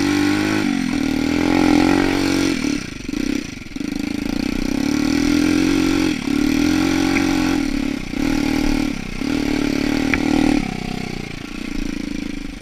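Bashan 200 quad's single-cylinder four-stroke engine running under way. The pitch rises and falls as the throttle is opened and eased off several times.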